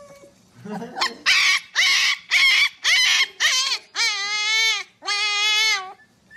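Husky puppy yelping: about five short high cries at roughly two a second, then two longer wavering howls.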